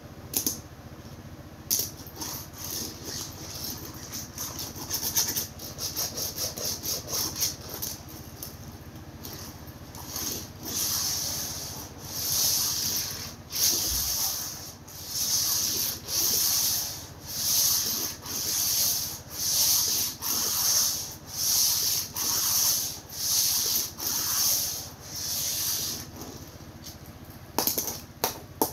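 Small die-cast toy car pushed back and forth by hand, its wheels rubbing and scraping in repeated strokes: quick short strokes at first, then slower regular strokes about one every 0.7 s.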